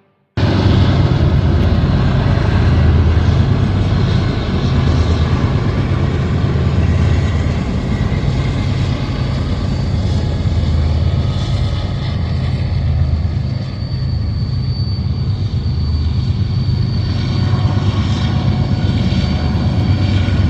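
Steady roar of heavy interstate traffic with a deep rumble, starting abruptly and running on without a break.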